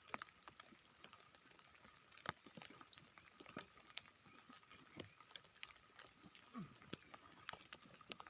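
Faint, scattered ticks and rustles of grass being pulled up and the ground cleared by hand, in light drizzle, over a faint steady high tone.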